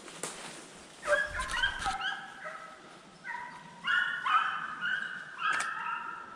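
A pack of deer hounds baying hard on a running deer's trail. Several dogs give long drawn-out notes that overlap at different pitches, loudest about a second in and again around four seconds.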